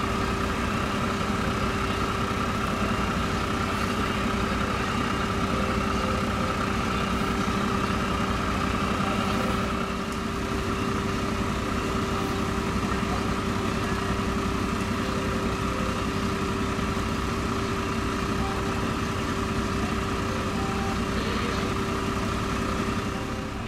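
Fire engine's engine idling at a standstill: a steady engine drone with a constant hum over it that does not change, dropping slightly in level about ten seconds in.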